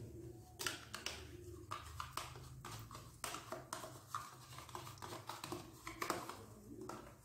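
Irregular light clicks and taps as a plastic yogurt pot is emptied into a glass mixing bowl of beaten eggs, with a steady low hum beneath.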